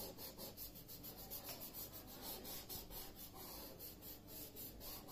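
Folded paper rubbed rapidly back and forth over graphite pencil shading on drawing paper, blending it: a faint, quick rubbing in many short strokes.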